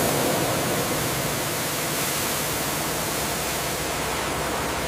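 High-pressure water jet spraying steadily: an even, loud hiss and rush as it strips marine growth off a ship's hull.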